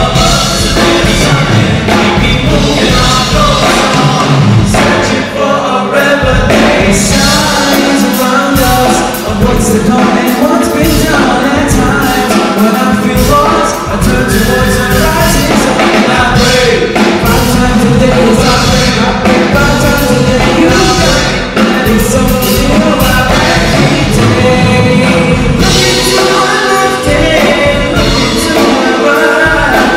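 A song performed live: a singer's voice over instrumental backing, loud and continuous.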